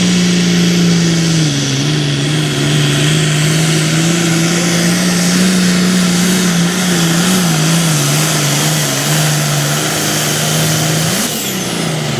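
Modified farm tractor's diesel engine running hard at high, nearly steady revs under load while pulling the sled. Near the end the engine note jumps up briefly and then drops away as the throttle comes off, with a high whistle falling in pitch.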